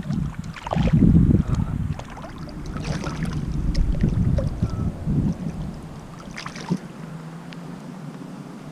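Water splashing and sloshing in irregular bursts, with wind rumbling on the microphone.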